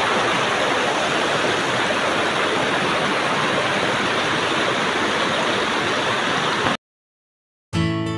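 Steady rush of a fast-flowing rocky river current. It cuts off abruptly about seven seconds in, and after a moment of silence acoustic guitar music begins.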